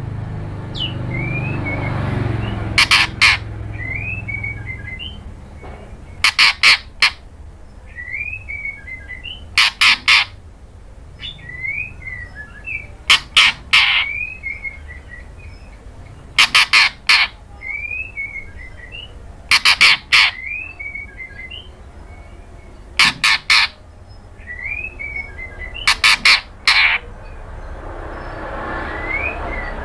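White-rumped shama calling: a harsh rasping burst of three or four notes about every three seconds, with short curling whistled chirps in between.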